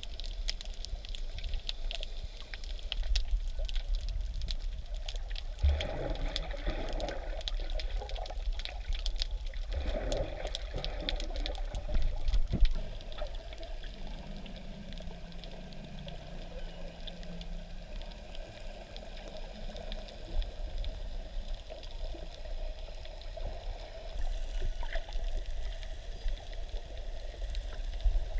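Muffled water sloshing and gurgling, as heard by a snorkeller's camera under or at the water surface, with many faint scattered clicks. Two louder gurgling surges come about a quarter and a third of the way in.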